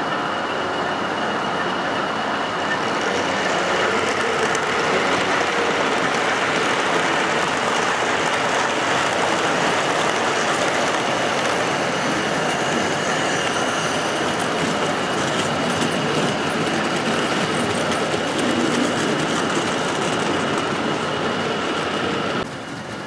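O gauge model diesel locomotive and train running on the layout: a steady rolling noise of wheels on rail with a steady high whine through it. It drops away suddenly near the end.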